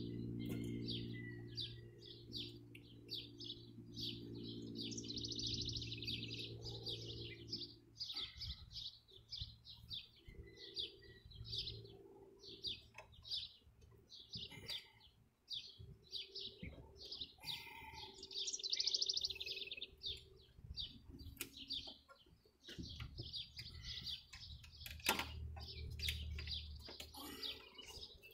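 Songbirds chirping busily in quick repeated notes throughout. A low engine hum runs under them for the first several seconds, fades, and comes back faintly near the end, and a few sharp clicks sound near the end.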